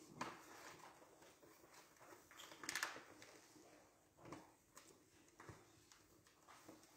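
Near silence: quiet room tone with a few faint knocks and rustles, the loudest a short rustle just under three seconds in.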